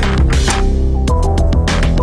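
Background music with a steady beat and sustained bass notes.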